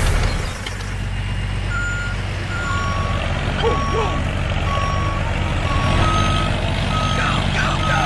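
Truck engine running steadily while a reversing alarm beeps, short even beeps a little faster than one a second, starting about two seconds in.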